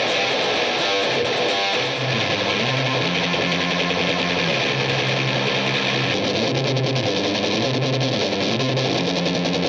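Electric guitar played through a Death By Audio Fuzz War fuzz pedal into a Peavey 6505MH amp, heavily fuzzed and distorted. A held fuzzed chord gives way, about two seconds in, to a repeating low riff that moves between a few notes.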